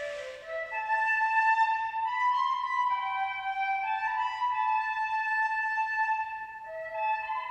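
Slow instrumental music: a melody of long held notes, some overlapping, changing about once a second, with a brief breathy hiss at the start.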